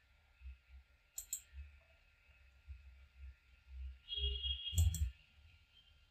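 Computer mouse button clicks: two quick pairs, one about a second in and one near the five-second mark, over a faint low rumble.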